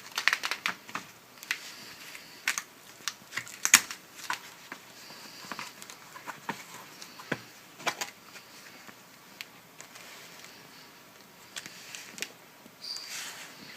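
Handling noise of a tablet in a PU leather case being folded into its stand: irregular clicks, taps and rustles of the cover and tablet, busiest in the first few seconds.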